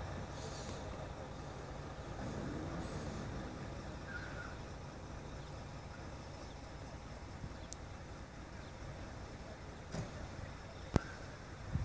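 Steady low rumble of idling vehicle engines, with a few sharp clicks near the end.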